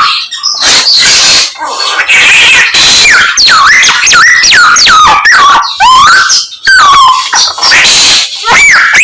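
A samyong songbird singing a rapid stream of mimicked bird calls. It gives quick sliding whistles, most of them falling in pitch, broken up by short bursts of harsh chatter.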